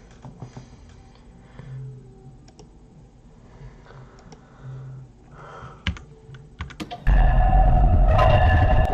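Faint computer mouse clicks and keyboard taps, then about seven seconds in a sudden loud, harsh, distorted blast of noise with a few steady tones cuts in from a meme video's soundtrack.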